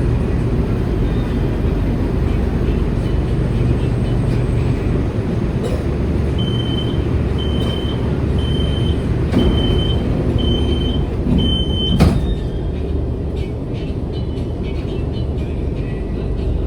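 Interior running noise of a CSR Zhuzhou light rail vehicle in motion: a steady low rumble. From about six seconds in, six short high beeps sound about a second apart, followed by a single sharp knock near the twelve-second mark.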